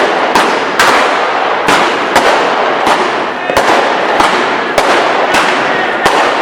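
Street fireworks and firecrackers going off all around: about ten sharp bangs at uneven intervals over a constant crackle of smaller explosions.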